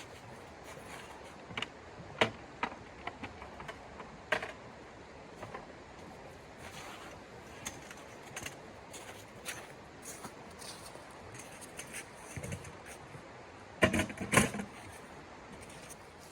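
Scattered light clicks and knocks over a steady hiss, with a brief burst of clattering about fourteen seconds in: small objects being handled.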